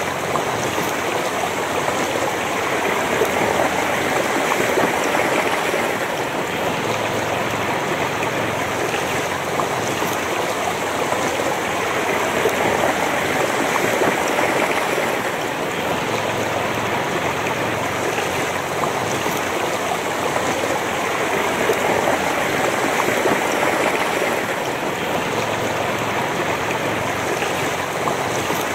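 Shallow river flowing fast over stones: a steady rush and babble of water that swells a little every several seconds.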